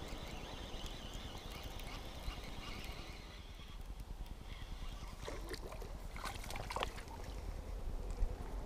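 Baitcasting reel cranked steadily as a hooked perch is wound in to the shore. About five to seven seconds in, the perch splashes several times at the surface.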